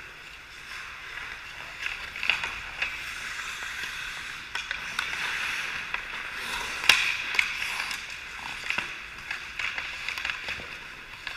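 Ice hockey skates scraping and carving on the ice, mixed with sharp clacks of sticks and puck, the loudest about seven seconds in.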